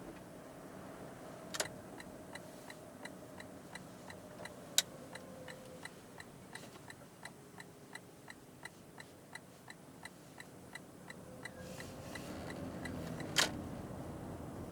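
Lexus RX450h turn-signal indicator ticking steadily, about three clicks a second, starting about two seconds in and stopping near the end, with a few sharper single clicks over a low steady background.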